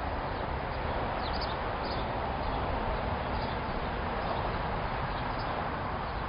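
Steady outdoor background noise, an even hiss and rumble, with a few faint short high chirps, the first about a second in.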